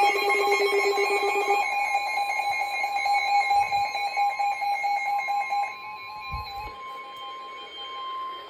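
A weather radio receiver's alert alarm beeping rapidly in several pitches over the NOAA Weather Radio 1050 Hz warning alarm tone, which signals a warning broadcast. The beeping stops about five and a half seconds in, leaving the steady alarm tone alone, a little quieter.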